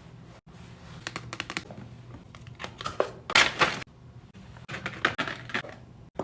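Gift packaging being handled and opened by hand: scattered light clicks and taps, with a short, louder rustle about three seconds in.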